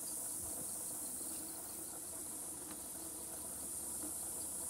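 Steady, high-pitched insect chorus in summer grass. Beneath it is a faint, steady low hum, the engine of the distant approaching diesel locomotive.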